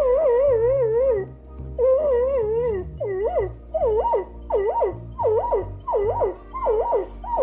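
White long-haired dog howling: two long wavering howls, then a run of short rising-and-falling howls about two a second.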